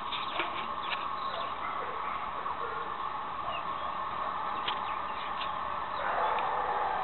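Outdoor ambience: a steady hiss with scattered faint bird chirps and small clicks. The background noise grows a little louder about six seconds in.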